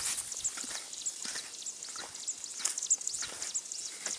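Footsteps on a dirt field path, under a steady background of many short, high-pitched chirps from insects or birds in the fields.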